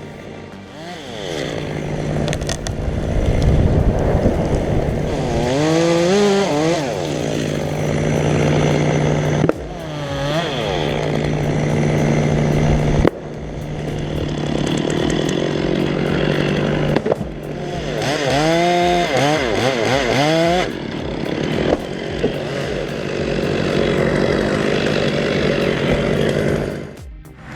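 Chainsaw engines running and revving up and down as they cut wood, in several short takes that break off abruptly.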